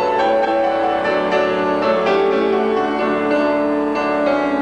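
Classical music: a grand piano playing with a string orchestra in a piano concerto.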